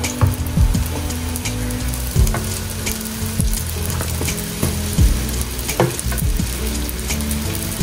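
A steady crackling hiss, like something sizzling, over background music with a bass line and a soft kick drum. The hiss cuts off suddenly at the very end.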